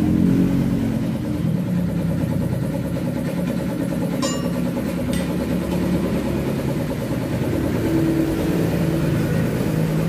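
A motorcycle engine running steadily in the background, its revs rising and falling a little. Two short clicks come about four and five seconds in.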